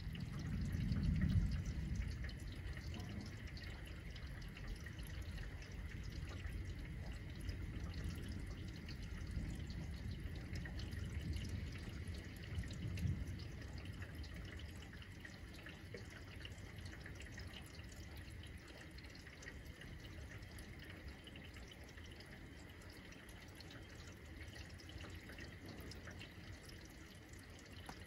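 Steady rain with water dripping, under low rumbles of distant thunder. The loudest rumble swells about a second in, another comes around eight to thirteen seconds, and the rumbling eases after that.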